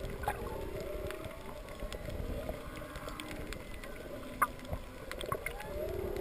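Humpback whale song heard underwater: a series of moaning calls that rise and fall in pitch, with a louder, buzzy call near the end. Sharp clicks and snaps from the reef crackle throughout.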